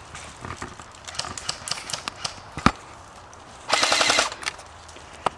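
Airsoft guns firing: scattered single snaps, then a rapid full-auto burst lasting about half a second, and one more single shot near the end.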